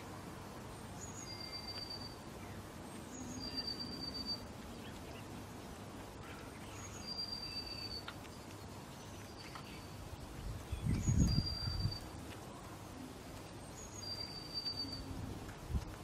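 A small songbird repeats a short high whistled phrase five times, a brief higher note then a thin steady whistle, every three to four seconds, over light outdoor ambience. A low rumble swells for about a second and a half just past the middle.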